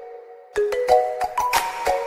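Background music: a light tune of struck, ringing notes, which thins out briefly at the start and picks up again about half a second in.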